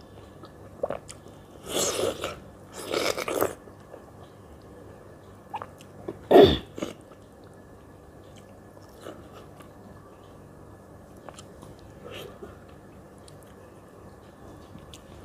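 A person eating ripe mango flesh off the peel: two short wet mouth bursts about two and three seconds in, a louder one with a falling sweep around six seconds, then quiet chewing with small mouth clicks.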